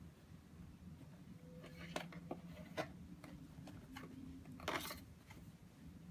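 Light taps and clicks of a cat-teaser wand knocking against a cardboard teaser box as it is handled, with a short scraping rustle late on as the loudest sound.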